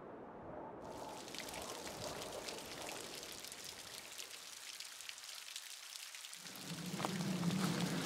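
Rain falling, a fine patter of drops starting about a second in. A low steady hum joins near the end.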